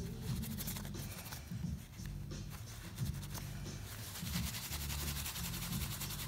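A paper towel rubbing and wiping over the soldered seams of a stained-glass panel, drying it, in quick scratchy strokes that get busier in the second half. Quiet background music with low held notes plays underneath.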